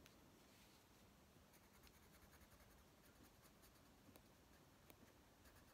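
Faint scratching of a Prismacolor coloured pencil shading on the paper of a colouring book, in many quick small strokes.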